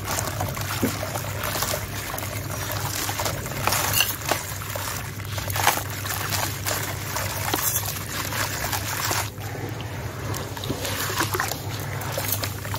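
Hands crushing a gravelly sand-cement chunk: a steady hiss of grit and powder pouring and trickling into the tub, broken by several sharper crunches as pieces break.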